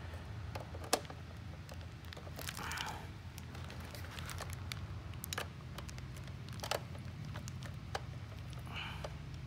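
Screwdriver working a small screw into a plastic toy-train locomotive shell: scattered light clicks and taps of the tool and shell as they are handled, with two brief rustles, over a steady low hum.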